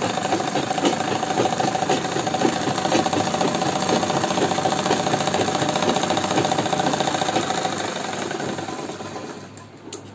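Sewing machine running at speed, stitching a seam line through the fabric with a fast, steady clatter; it slows and stops near the end.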